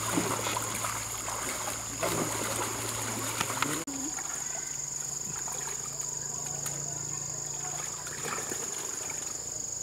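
Water splashing and sloshing as people wade through a shallow pond dragging a fishing net; after a cut about four seconds in, softer, steady sloshing and dribbling as the net is gathered in by hand.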